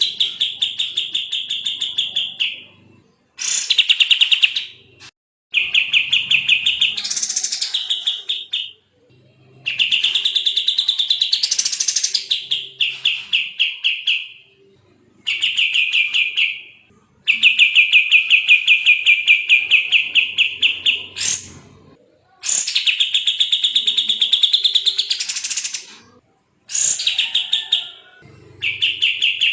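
Kapas tembak songbird singing in fast, tightly packed trills: about eight phrases of two to four seconds each, separated by short pauses, some with notes sweeping sharply upward.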